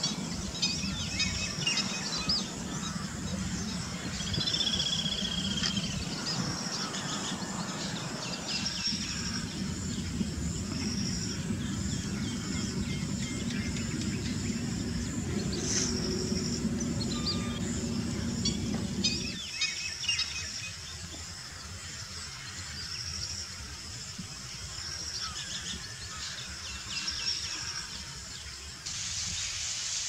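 Little grebes (dabchicks) giving high, trilled calls in repeated bouts, over a low steady background noise that falls away about two-thirds of the way through.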